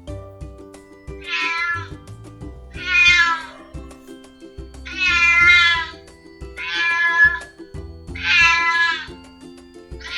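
Domestic cat meowing five times, each meow about half a second to a second long, spaced about a second and a half apart, with another beginning at the end. A steady music bed plays underneath.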